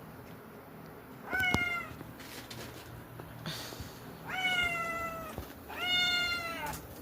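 Domestic cat meowing three times: one short meow, then two longer, slightly falling meows. The owner takes the cries as sadness at the loss of his iguana companion.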